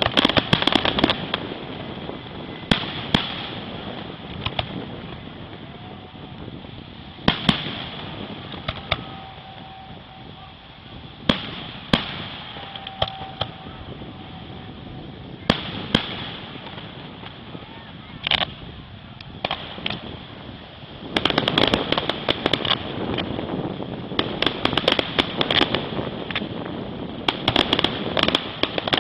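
Fireworks display: aerial shells bursting with single sharp bangs every few seconds. About two-thirds of the way through comes a dense run of rapid crackling reports.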